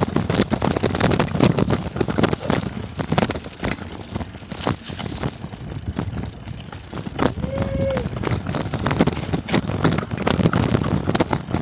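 Bicycle rattling and clattering over a rough downhill dirt trail, a dense, uneven stream of knocks and jolts. A short voice-like call sounds briefly a little past the middle.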